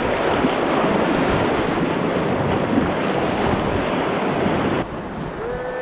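Steady, loud rushing of river whitewater, which drops off abruptly near the end.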